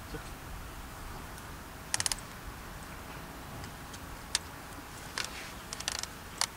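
Scattered sharp clicks and light clatters of small hard objects over a steady low background hiss. A quick run of several clicks comes about two seconds in, and more single clicks and short groups follow in the second half.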